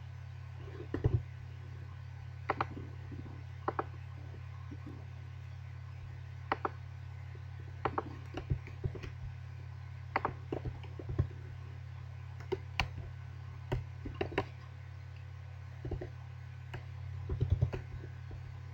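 Computer keyboard keys clicking in sparse, irregular keystrokes as code is typed, over a steady low hum.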